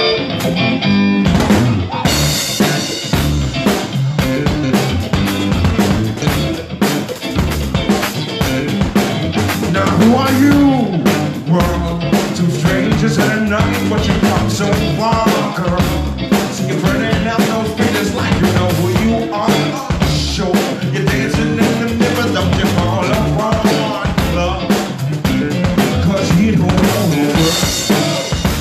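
A live band playing an instrumental passage, with no vocals: a drum kit's kick and snare, with rimshots, keep a steady beat under pitched band instruments.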